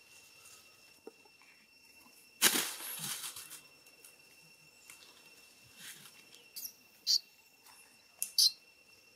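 Steady two-tone drone of forest insects, broken about two and a half seconds in by a loud rustling burst lasting about a second, then a few short sharp noises near the end.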